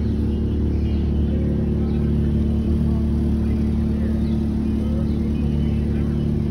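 A steady low engine drone holding a constant pitch, an engine running at an unchanging speed.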